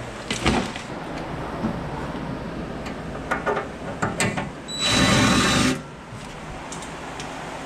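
Scattered metal knocks and clicks from handling the steel panels of a cabinet being taken apart, with a power screwdriver running for about a second, with a steady high whine, a little before the middle.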